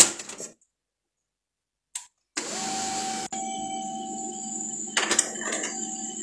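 The last few quick plastic clicks of a part on an HP printer being pulled repeatedly, then, after a brief cut-out, the printer's mechanism starts running with a steady hum and a fixed whine, with a few clicks about five seconds in.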